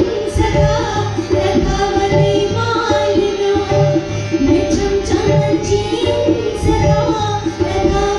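Live folk music accompanying a group dance: voices singing over a steady hand-drum rhythm, with a melody instrument repeating short held notes.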